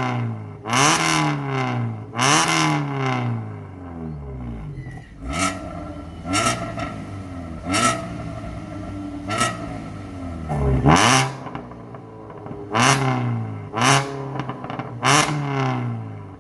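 Suzuki Ertiga's four-cylinder petrol engine revved in about ten short throttle blips through an aftermarket stainless full-system exhaust with a valvetronic cutout valve. Each blip rises sharply and falls back to idle, and the biggest rev comes about two-thirds of the way through.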